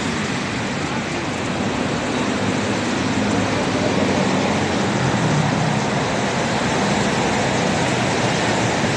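Idling motorcycles and street traffic on a wet road: a steady hiss over a faint low engine hum, with muffled voices underneath.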